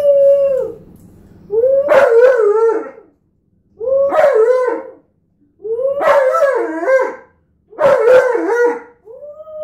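Alaskan Malamute howling in a run of about six drawn-out calls of a second or so each, with short breaks between them. Several of the calls waver up and down in pitch.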